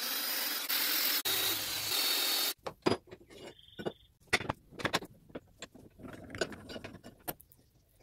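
Cordless drill boring into a cast-iron vise body for about two and a half seconds, a steady grinding whir that stops abruptly. Then comes a run of irregular sharp metallic clicks and knocks from tool handling, with a brief squeak about three and a half seconds in.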